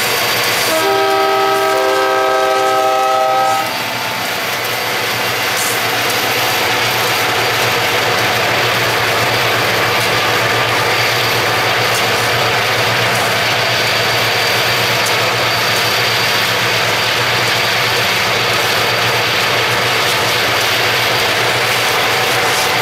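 Marquette Rail diesel locomotive's multi-chime air horn sounding one long blast of about three seconds. After that, steady road and wind noise from a car driving alongside the train, with the train's rumble underneath.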